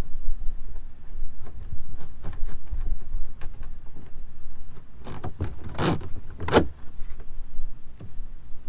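Hands working on a kayak's cockpit outfitting: irregular plastic clicks, knocks and rubs, with two louder scrapes about six seconds in.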